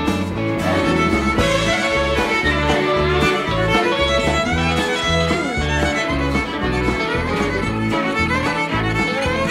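Rock band playing live: a violin solo with quick sliding runs over a moving bass guitar line and drums.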